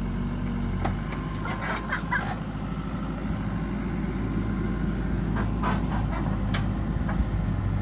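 Excavator diesel engine running steadily, with a few short knocks and rattles about a second in, around two seconds, and again around five and a half to six and a half seconds.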